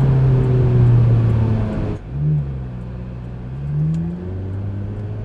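Ferrari F430's V8 engine running while driving: a steady, loud note for about two seconds that drops off suddenly, a short blip, then the pitch climbs as it pulls again and settles.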